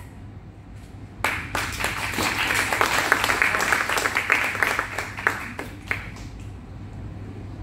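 A group of onlookers clapping. The applause starts abruptly about a second in and dies away near six seconds.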